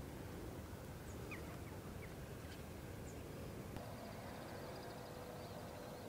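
Faint outdoor ambience with a few short, faint bird chirps in the first half. About two-thirds of the way in, after a cut, a faint steady hum and a thin warbling high sound join the background.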